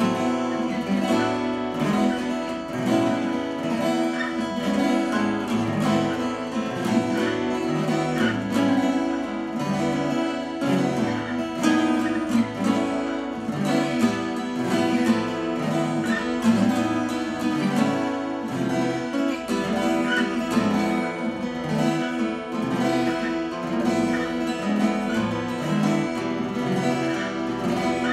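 Three acoustic guitars strummed together in a steady rhythm, playing a minor-key tune.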